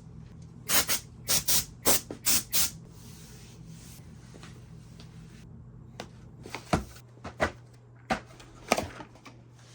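Mechanical keyboard keys clacking: a quick run of keystrokes in pairs, then a pause with a soft hiss, then a few scattered clacks and knocks.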